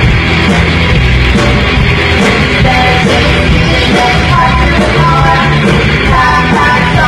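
A punk rock band playing live and loud, with electric guitar, bass and drums.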